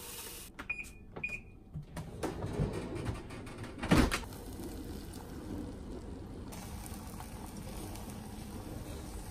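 Kitchen microwave oven: two short beeps, some clattering and a loud thump about four seconds in, then a steady running hum.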